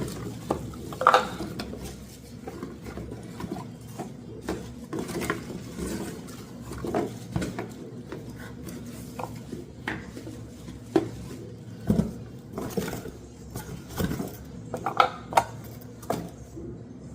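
Irregular clicks, clacks and light knocks of hard objects being handled and set down, with a few sharper clacks about a second in and several more later on.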